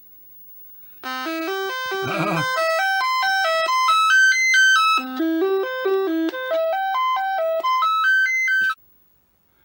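Commodore SX-64's SID sound chip playing the diagnostic cartridge's sound test: a melody of buzzy electronic tones stepping up and down in pitch, starting about a second in and cutting off near the end.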